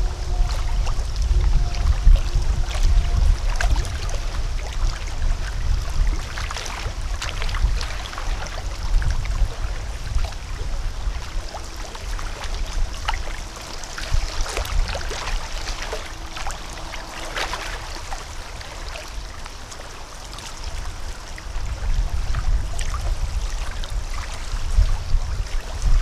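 Lake water lapping and trickling at the shore, with many small irregular splashes, under a heavy fluctuating rumble of wind on the microphone. A faint steady hum comes and goes in the background.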